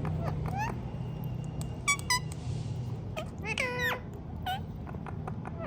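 Indian ringneck parakeet giving short rising chirps, with a quick pair of high chirps about two seconds in and a longer call that drops in pitch a little later, over a steady low hum.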